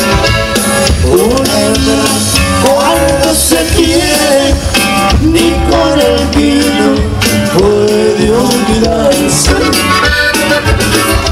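Loud live norteño band music for dancing, with accordion over a steady bass beat.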